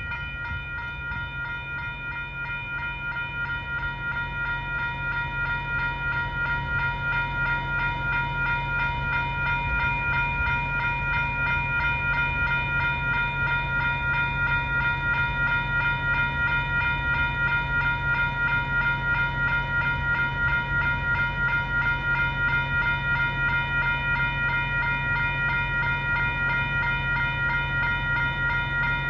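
Railroad grade-crossing warning bell ringing continuously in rapid, even strokes, over a steady low hum.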